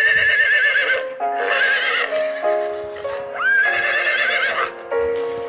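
A horse whinnying, three high, quavering neighs a second or two apart.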